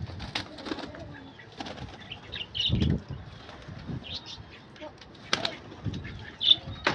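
Domestic pigeons flapping their wings as they come out of the loft, in irregular bursts, with a few sharp clicks.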